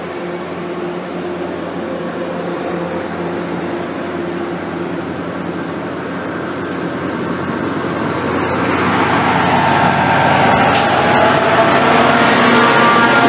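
Departing diesel push-pull commuter train rolling past on the station track: bilevel coaches go by, then the diesel locomotive pushing at the rear comes past, the engine and wheel noise getting louder over the last few seconds with some high wheel ringing and a single sharp click.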